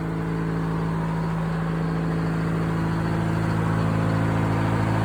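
Sawmill engine running steadily, its level creeping up slightly.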